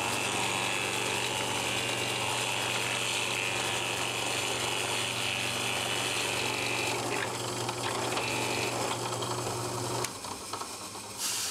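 Bench drill press running steadily with its bit boring a weight hole into a wooden crankbait body, a constant motor hum under the hiss of the bit cutting wood. The drilling stops about ten seconds in and the machine winds down.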